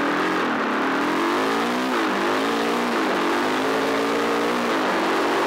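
Enduro motorcycle engine under hard acceleration, the pitch climbing and dropping back with upshifts about two, three and nearly five seconds in, over a steady rush of wind and gravel.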